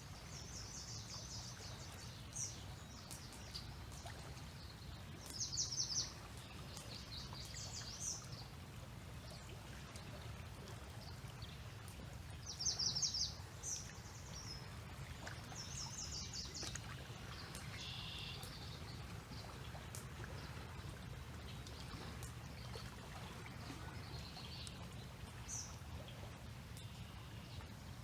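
Songbirds calling in short, repeated bursts of high chirps over the steady low rush of the river.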